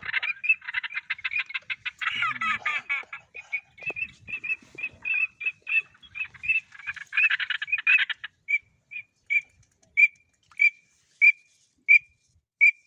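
Birds calling: a dense run of short, high chattering calls, then from about eight seconds in a single short call repeated at an even pace, roughly twice a second.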